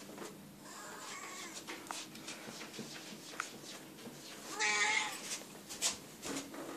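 Burmese cat meowing twice: a softer meow about a second in and a louder one a little past the middle, with a few light clicks and rustles between.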